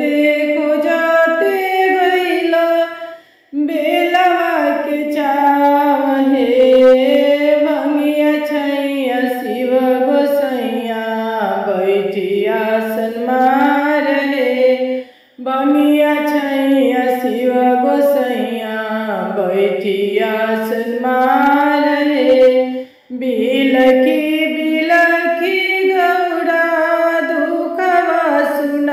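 A woman singing a Bhojpuri Shiv charcha bhajan, a devotional song to Shiva, with no instruments to be heard. She sings long, wavering melodic phrases and breaks off briefly for breath three times: about three seconds in, midway, and near the end.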